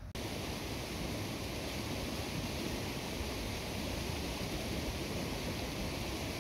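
Steady, even rushing hiss that starts abruptly just after the beginning and stays unchanged throughout.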